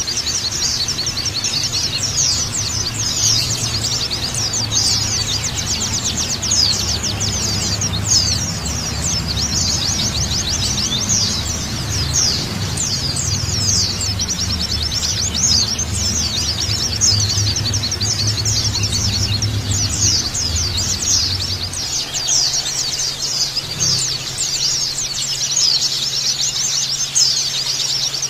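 Many white-eyes (pleci) chattering together in a fast, continuous stream of high chirps and twitters, as a flock of pleci sounds. A low background hum sits underneath and drops away about three-quarters of the way through.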